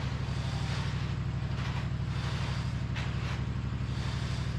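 A heavy engine idling steadily, with several short swishing noises over it.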